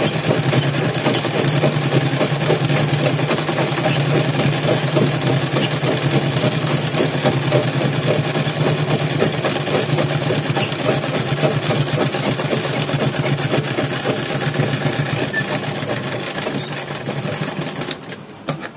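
Sewing machine stitching continuously through fabric, a fast run of needle strokes over a steady hum; it eases off and stops near the end.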